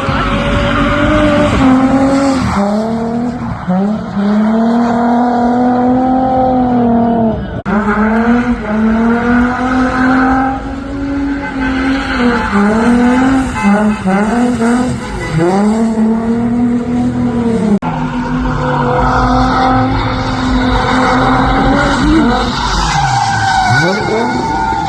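Holden Commodore's V6 engine revving hard through a drift run, its pitch held high then dipping and climbing back again and again, with the tyres skidding and squealing.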